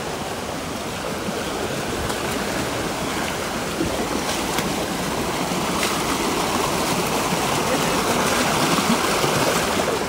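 Rocky mountain stream rushing and splashing over boulders, a steady wash of water that grows a little louder toward the end.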